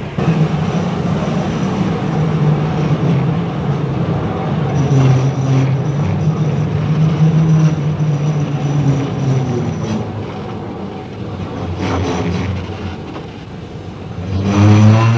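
JNR C62 steam locomotive and its train running, a continuous heavy rumble with sustained low droning tones that slide in pitch now and then.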